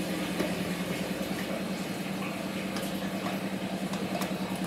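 Washing machine running mid-wash: a steady low hum with an even pulsing, with a few faint clicks.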